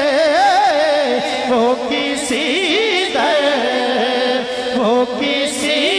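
Male voice singing a naat unaccompanied, in long drawn-out phrases with wavering, ornamented pitch, amplified through a PA system.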